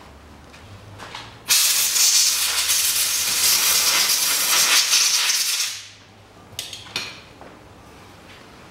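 A pressurised spray hissing steadily for about four seconds, starting suddenly about a second and a half in and tailing off, followed by a couple of light clicks.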